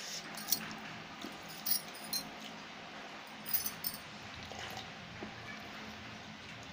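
Fingers scraping leftover curry off a stainless steel plate, with a few sharp little clicks against the metal in the first four seconds.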